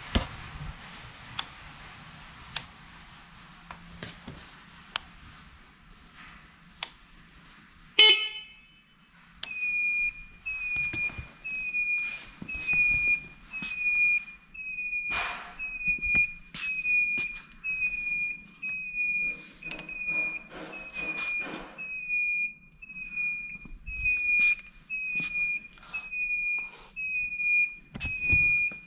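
A trike's electronic beeper sounding a high beep that repeats evenly, a little over once a second. It starts after a single short, loud chirp about eight seconds in. Before the chirp there is only a faint hum with a few sharp clicks.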